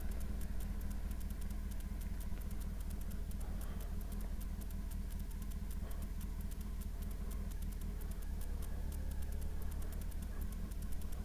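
Motorcycle engine running at low speed or idling, a steady low note with a fast, light ticking over it, while the bike is moved to park.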